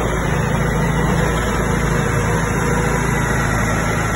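Vehicle engine running steadily at a constant speed, heard from on board while it moves, with a low, even hum.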